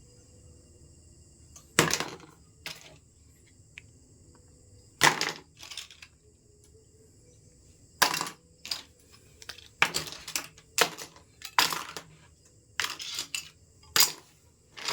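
Irregular handling noises as a toy RC car and its packaging are unboxed: sharp clicks, knocks and short crinkles of cardboard and plastic, coming in scattered clusters.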